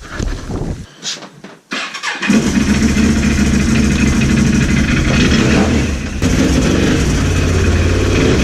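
A few knocks, then a motor starts about two seconds in and runs steadily, getting a little louder about six seconds in.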